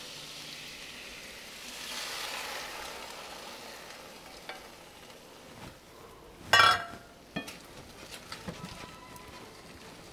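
Soy-sauce-based sauce sizzling in a hot stainless steel skillet of fried beef and bell peppers, swelling about two seconds in as it hits the hot metal, then easing. A short loud metallic scrape about six and a half seconds in, followed by a few light clicks of a spatula stirring.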